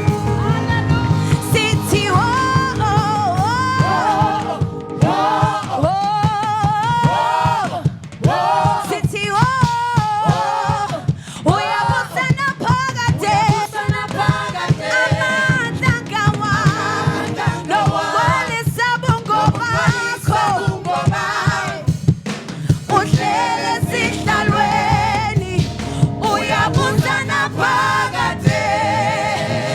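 Live church worship music: several voices singing with vibrato over a band with a steady drum beat.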